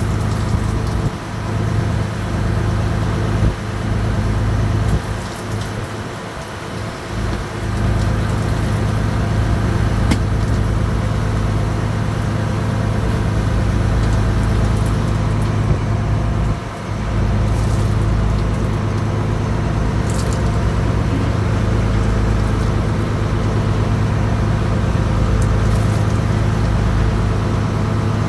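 Fishing boat's engine running steadily, a constant low drone, with a few faint clicks and knocks over it.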